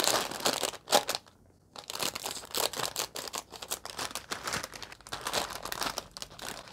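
Plastic instant-noodle packet crinkling as it is torn open and handled, with a sharp crackle about a second in, a brief pause, then steady crinkling.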